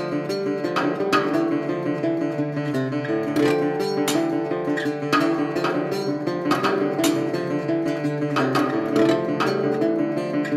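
Solo acoustic guitar music played on a circa-1930 Levin guitar in DADGAD tuning: a busy run of plucked notes over ringing lower strings.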